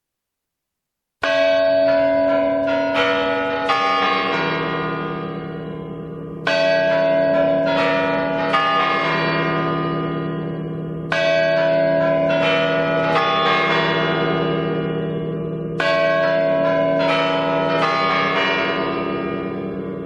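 Church bells ringing: after about a second of silence, several bells are struck in quick runs that start again about every four to five seconds, each run ringing out and fading, with a deeper bell humming underneath from about four seconds in.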